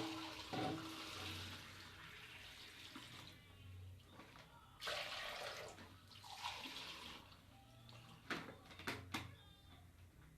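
Water running in two spells, then a few sharp knocks near the end.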